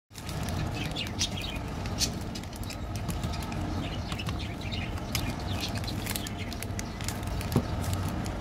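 Plastic chocolate-bar wrappers crinkling and rustling in the hands as the bars are sorted and laid down, with a single knock near the end. Birds chirp in the background over a steady low hum.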